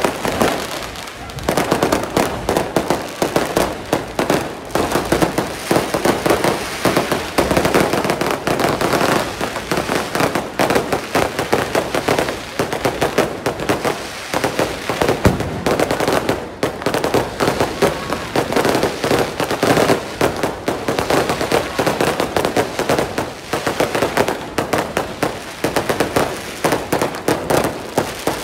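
Firecrackers going off in a dense, rapid, almost unbroken rattle of cracks.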